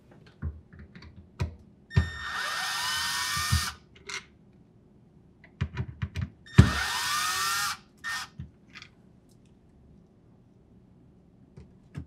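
Cordless drill driver running in two short bursts, the first about a second and a half and the second about a second, backing out the two screws that hold a refrigerator door stop. Small clicks and knocks of the bit and the plastic part come between the runs.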